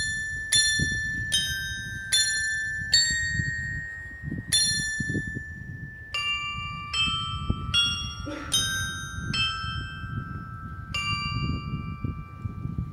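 Carillon of small bells on a clock tower's facade playing a slow melody: about a dozen single struck notes at different pitches, each ringing on and overlapping the next, over low background noise.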